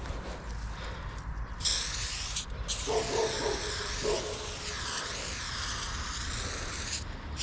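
Aerosol spray paint can spraying onto a wall: a short burst of about a second, then a longer hiss of about four seconds that wavers as the can sweeps back and forth, stopping shortly before the end.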